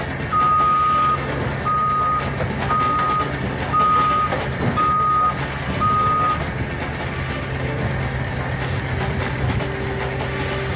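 A heavy-equipment backup alarm beeps six times, about once a second, then stops, over the steady running of a diesel engine.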